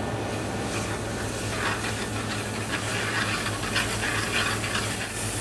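Ginger-garlic paste sizzling in hot oil in a frying pan while a metal ladle stirs it. The sizzle grows louder about a second and a half in, over a steady low hum.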